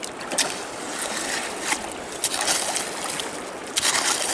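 Shallow muddy stream water sloshing and splashing as a hoe is dragged through the stream bed mud and hands grope in the water, with several sharp splashes, the loudest near the end.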